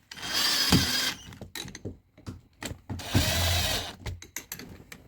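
Electric screwdriver, its torque turned down low, running in two bursts of about a second each as it drives screws back into a massage chair's motor gearbox, with light clicks and knocks of handling between the bursts.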